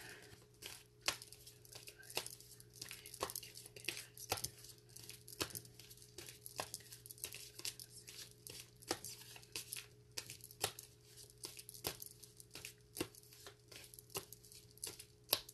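Tarot cards being shuffled by hand: irregular soft snaps and rustles, several a second, over a faint steady hum.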